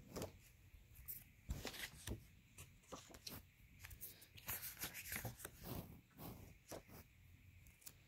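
Faint handling noise: light rustles and small taps and clicks, scattered irregularly.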